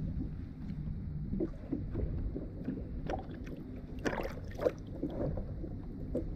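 Water lapping against a plastic fishing kayak's hull, with wind on the microphone as a steady low rumble. A few short, sharp sounds stand out, the loudest about four and a half seconds in.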